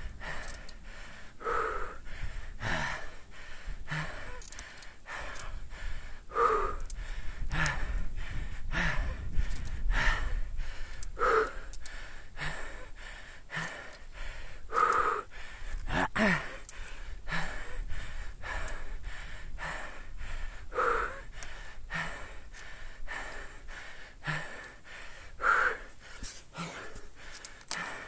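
A cyclist breathing hard, working near his limit at walking pace on a very steep road climb: quick, heavy breaths with a louder voiced gasp every few seconds. A low wind rumble on the camera microphone runs underneath.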